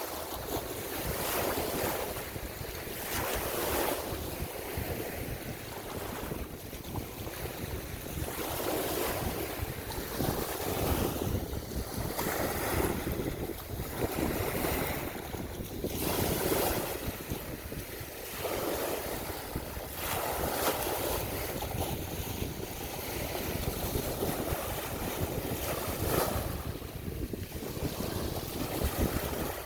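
Wind and surging water noise, with wind buffeting the microphone. It swells and eases every couple of seconds.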